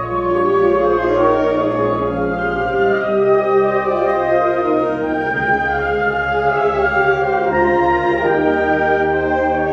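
Concert wind band playing: brass and woodwinds in held chords that shift every second or so.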